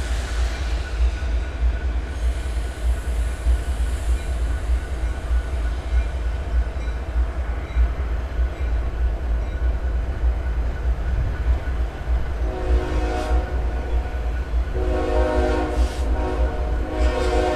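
Low, steady rumble of a train on the line, then a locomotive air horn sounding a chord of several tones: a short blast about twelve seconds in, then a long blast starting about three seconds before the end.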